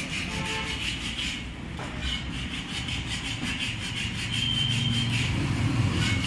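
Continuous rubbing and scraping on a motorcycle alloy wheel rim, as it is worked by hand before a tubeless tyre is fitted.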